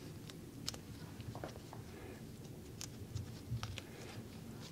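Faint rustling and scattered light ticks of latex-gloved hands handling a padded fiberglass splint roll, working back its rough cut end.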